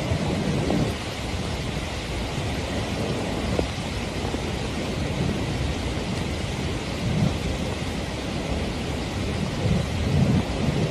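Storm and flood noise: a loud, steady rush of heavy rain and water, with deep rumbling swells now and then.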